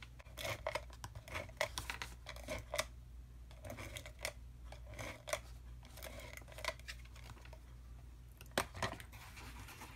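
Adhesive tape runner drawn along cardstock in a series of short strokes, laying strips of double-sided adhesive, with small clicks and paper handling between them.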